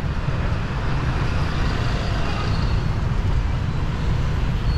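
Steady city street traffic noise: a continuous mix of engines and tyres from the surrounding roads.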